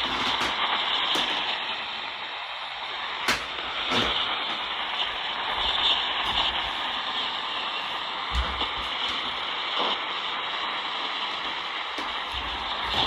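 Radio static: a steady hiss with scattered crackles and clicks.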